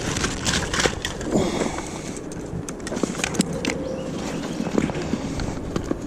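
Handling noises: scattered clicks and knocks of gear being moved about, over a steady low rumble.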